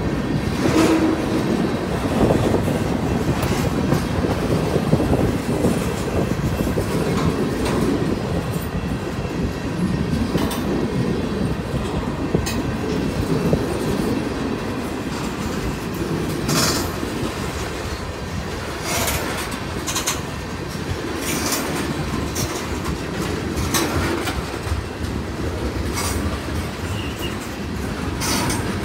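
Freight train cars rolling past at close range, first centerbeam flatcars and then tank cars: a steady rumble of steel wheels on the rails with clickety-clack over the rail joints. In the second half come several short, sharp high-pitched noises.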